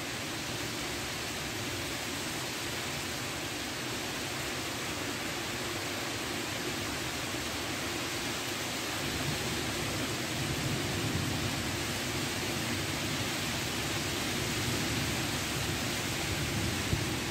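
Steady rain falling in a storm, an even hiss, with a low rumble growing stronger about halfway through.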